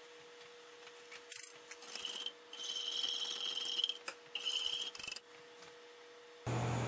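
Wire whisk scraping and swishing around a saucepan in irregular strokes for about four seconds, stirring a cornstarch slurry into hot strawberry juice to thicken it. Near the end a steady hum takes over.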